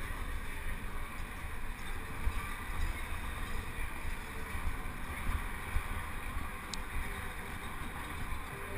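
Wind buffeting the microphone of a helmet-mounted camera on a penny-farthing riding at race speed: a steady low rumble.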